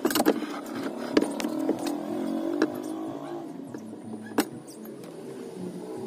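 Irregular metallic clicks and ticks of a T-handle driver turning and slipping on a steel bolt at a washing machine's spin-motor pulley, over a steady low drone.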